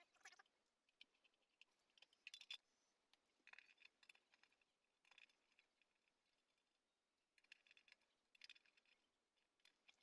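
Near silence with a few faint, scattered clicks and rustles of small objects being handled on a workbench.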